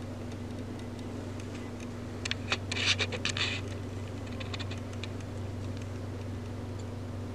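Light clicks and a short scratchy rustle, about two to three and a half seconds in, from handling paint and a brush, over a steady low hum.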